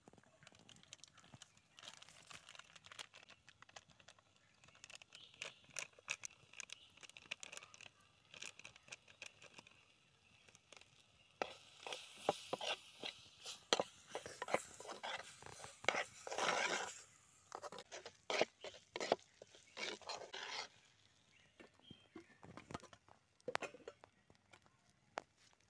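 Steel ladle stirring meat and masala in a clay pot: repeated scraping and knocking against the pot, busiest in the middle stretch.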